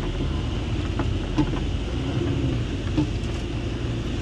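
Heavy truck's diesel engine running steadily, heard from inside the cab, with a few light clicks.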